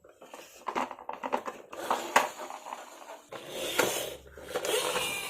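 Plastic toy cars clattering and rattling as they are handled, with a quick run of sharp clicks and knocks followed by denser rattling.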